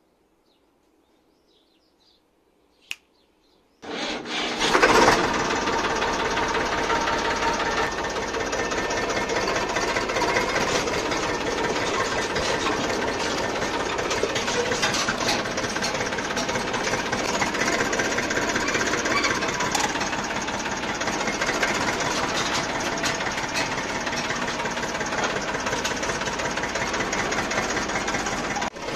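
Sonalika DI 750 III tractor's diesel engine starting about four seconds in after a single click, surging briefly, then running steadily with a knocking clatter.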